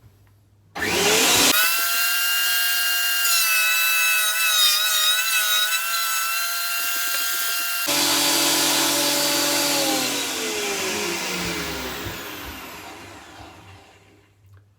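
Zipper ZI-HB204 planer-jointer switched on: its motor and cutter block spin up with a rising whine, run at a steady high pitch that wavers briefly midway, then wind down with a falling pitch and fade after being switched off. Loud.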